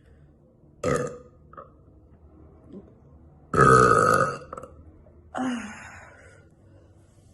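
A woman belching three times: a short burp about a second in, a long, loud one in the middle lasting about a second, and a shorter one after it.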